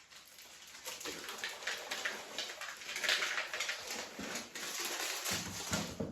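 Spoon stirring and scraping thick cookie dough in a mixing bowl: an irregular run of scrapes and knocks, busiest about halfway through.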